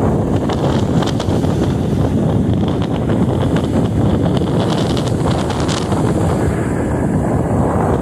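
Rushing wind buffeting the microphone on a moving motorcycle, a steady loud rumble, with faint scattered crackles through the middle.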